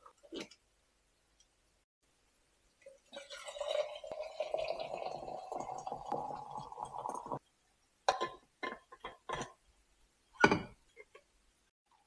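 Water poured from a kettle into an insulated French press mug, a steady pour whose pitch rises slightly as the mug fills, stopping abruptly. Then a string of short clinks and knocks of cups and objects handled on a wooden counter, with one sharper knock near the end.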